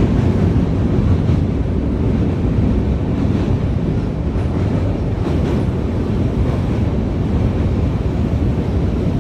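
Steady, loud rumble of a moving train, with wind buffeting the microphone.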